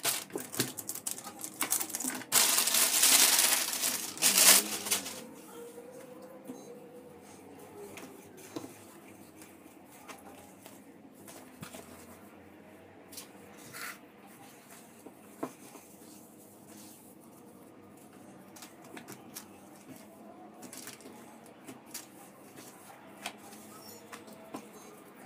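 Clear plastic packaging crinkling and rustling as a pleated fabric car sunshade is pulled from its bag, loudest for about two seconds shortly after the start. Then softer rustling of the fabric being unfolded and handled, with scattered small clicks.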